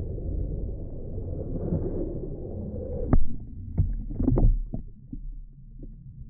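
Muffled swimming-pool water heard with the microphone underwater: a low, steady rumbling wash, with several sharp clicks and knocks between about three and five seconds in.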